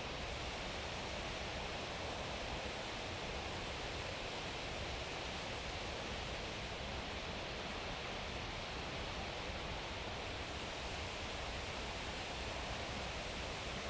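Steady outdoor background noise: an even hiss with light rustling, unchanging throughout.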